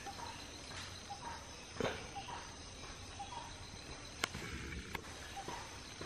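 Forest ambience: insects buzzing in steady high tones, with short chirps repeating about twice a second and a few sharp clicks, the loudest about four seconds in.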